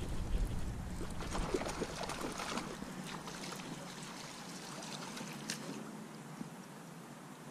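Topwater plopper lure gurgling and splashing as it is reeled across shallow water, the splashing busiest in the first few seconds and then thinning out.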